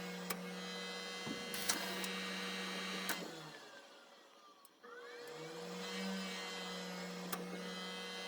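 Monitor GF 500 gas heater's combustion blower fan humming steadily, then switching off and spinning down to near silence, then starting again with a rising pitch and settling to a steady hum, with a few sharp clicks along the way. This is the heater's repeated restart cycle: it lights but shuts down each time, with a blinking burner-status fault that the owner traces to a sooty flame sensor.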